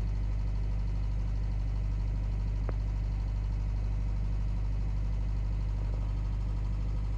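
Hyundai Verna CRDi common-rail diesel engine idling, heard inside the cabin as a steady low hum with a fine rapid pulse. This is the cabin noise the owner calls a weird sound.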